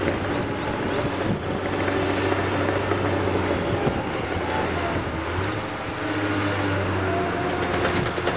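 Diesel engines of excavators and a crawler bulldozer working, a steady low drone that shifts in pitch a little near the middle, with wind noise on the microphone.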